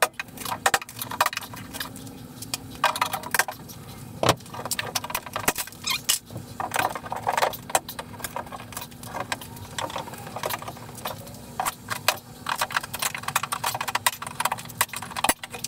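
Steel pry bar levering wall lining off the framing near the ceiling: a run of irregular cracks, knocks and rattles as the board breaks and nails and debris come loose.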